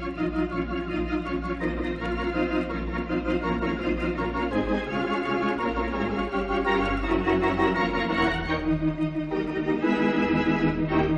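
Organ music: sustained chords over a low bass, changing every second or so.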